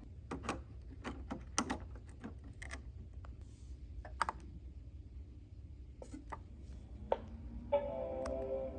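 Irregular light clicks and small knocks of hands handling plastic computer parts while a BlueSCSI drive adapter is swapped, then a short steady multi-tone sound lasting about a second near the end.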